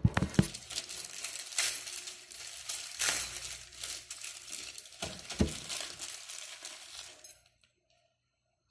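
Plastic packaging bag crinkling and rustling as it is opened by hand, with several sharp clicks, until about seven seconds in.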